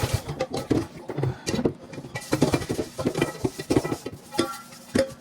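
Irregular clatter of kitchen things being handled at a sink: quick knocks and clinks, several a second, easing off near the end.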